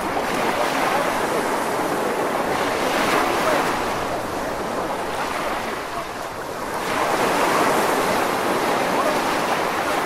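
Sea waves breaking and washing up the beach in a continuous rush of surf, swelling about three seconds in and again around seven seconds.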